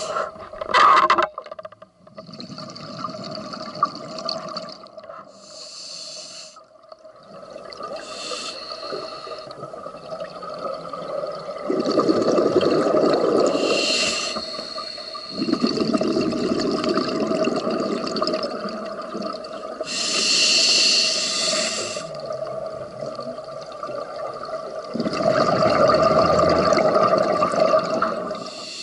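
Scuba diver breathing through a regulator underwater: short hissing inhalations alternating with longer bubbling exhalations, several breaths over, with a faint steady hum beneath.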